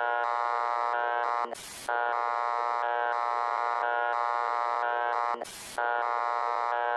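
Emergency-alert-system alarm tone: a harsh, buzzing chord of steady tones, broken twice by a short burst of static about four seconds apart.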